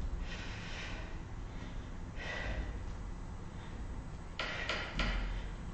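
A woman breathing hard through a one-legged standing side-crunch, with a couple of forceful breaths out in the first half. About four and a half seconds in come three short knocks in quick succession.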